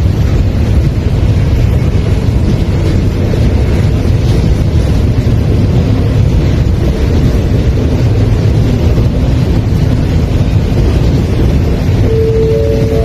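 Passenger train coaches rolling along the track, a loud steady low rumble. A few steady high tones come in near the end.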